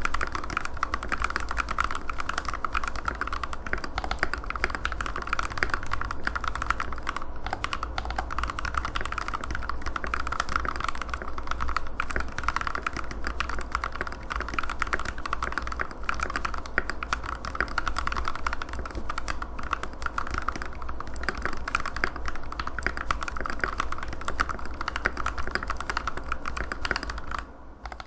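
Womier WK61 60% mechanical keyboard being typed on at a fast, steady pace: a dense run of key clacks that stops just before the end.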